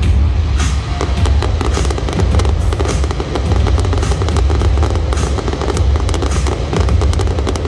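Fireworks display: a dense, continuous crackling and popping from crackle shells and ground fountains, over a steady deep rumble.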